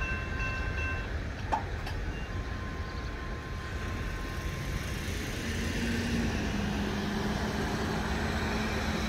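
Railroad crossing bell ringing, then stopping about a second in as the crossing clears after a freight train. A single sharp clunk follows as the gate arms begin to rise. In the second half a pickup truck's engine comes up steadily as it drives over the crossing, over a low rumble.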